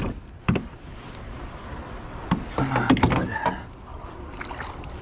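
Knocks and bumps against the side of a canoe as hands work a snagged fly line over the gunwale: a sharp one about half a second in, and a cluster of them between two and three seconds in.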